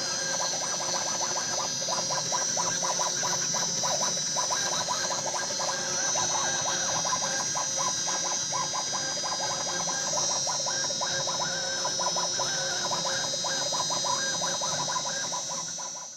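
CNC router spindle running with a steady high whine while its bit carves a 3D relief into beech, with a rapid, irregular chatter of cutting over it; the sound cuts off suddenly near the end.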